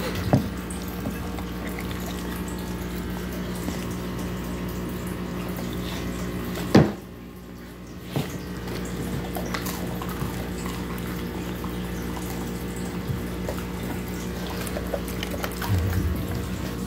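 A dog licking and chewing pizza scraps off a plate, with wet smacking and lapping, over a steady electrical hum. There is one sharp knock about seven seconds in.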